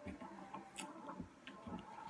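Faint, irregular clicks and smacks of eating Dungeness crab by hand: lips sucking and chewing meat out of the shell.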